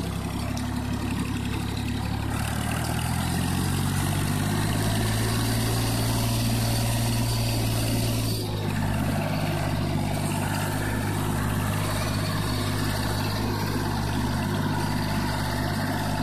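Ford 3000 tractor's three-cylinder engine running steadily while pulling a loaded trailer. The engine speed rises a few seconds in, holds, then eases slightly just past halfway.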